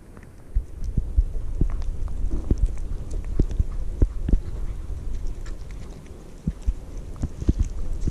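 Young orange-and-white kitten eating cat food from a bowl right against the microphone: irregular chewing clicks and soft low knocks, a few a second.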